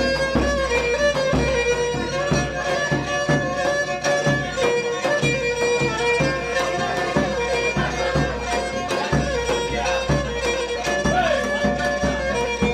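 Pontic lyra (kemenche) playing an instrumental interlude of a Pontic folk tune, bowed melody over a steady beat.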